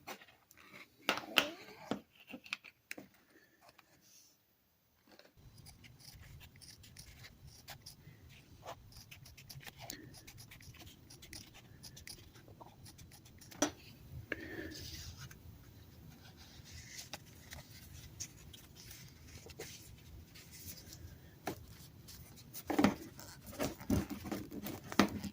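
Trimming excess off a formed handle wrap for a baseball stitch: scattered cutting snips, clicks and handling scrapes, busiest near the end. A low steady hum starts about five seconds in.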